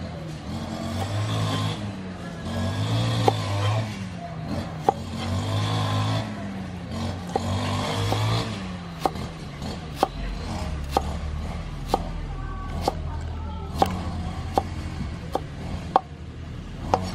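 Background music, with a few knocks of a steel cleaver on a wooden cutting board; from about nine seconds in, the cleaver chops cilantro in slow, even strikes about one a second.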